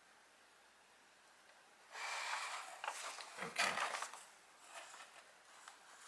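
Packaging being handled: a couple of seconds of rustling with a few sharp clicks about two seconds in, then fainter scattered rustles.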